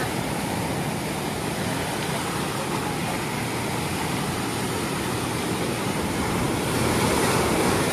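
Steady rushing noise of a moving vehicle, road and wind noise with no distinct engine note.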